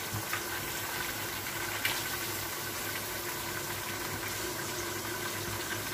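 Steady frying hiss of browned onions in a pressure cooker as pieces of beef are laid in, over a faint steady hum, with a couple of light knocks in the first two seconds.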